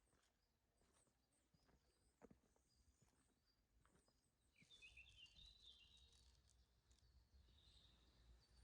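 Near silence: faint outdoor ambience with a few soft clicks, and faint bird chirping from about halfway through.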